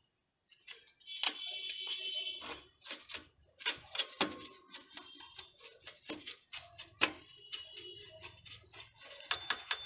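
A paintbrush scrubbing caked dust off a car's rear drum-brake backing plate and shoes: a run of short, scratchy strokes on metal. A brief high steady tone sounds about a second in.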